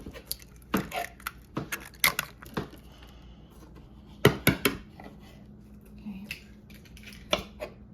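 Kitchen utensils tapping and clinking against a mixing bowl in irregular sharp clicks, with three louder knocks about four seconds in. A faint steady hum runs underneath.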